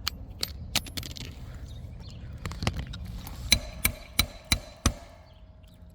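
Nails being driven into an asphalt shingle with a roofer's snake tool: a few light knocks, then about halfway through a run of five sharp metal strikes at about three a second, leaving a ringing tone.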